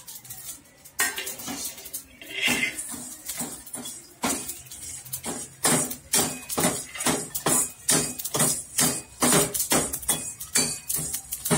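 A steel ladle scraping and clinking against a steel kadai, stirring whole dried red chillies and black peppercorns as they dry-roast without oil. It settles into quick, regular strokes of about three a second.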